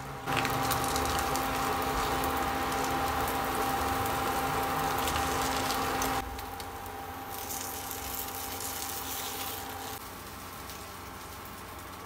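Okonomiyaki batter sizzling in a ceramic frying pan on an induction hob, with a steady electric hum underneath. About six seconds in, the loud sizzle cuts off abruptly and a quieter, hissier sizzle follows.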